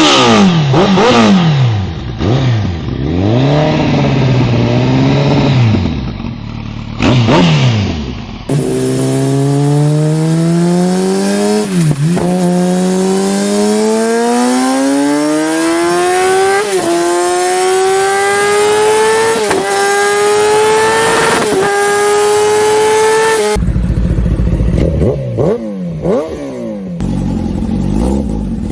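Kawasaki ZX-10R inline-four sport bike with an aftermarket full-system exhaust, first revved in short sharp blips. It then accelerates hard through the gears, its note climbing steadily and dropping back at four upshifts. Near the end come more quick revs.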